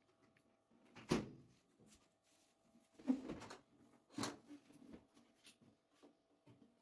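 Three sharp knocks and clatters of hard objects being handled, about a second in, at three seconds and just after four seconds, with a few fainter taps between.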